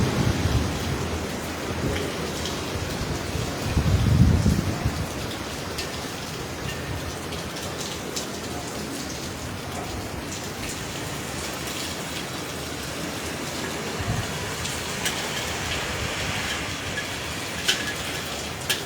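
Heavy hurricane rain falling steadily in strong wind. A low rush of gusting wind hits at the start and again about four seconds in, and a few sharp ticks come near the end.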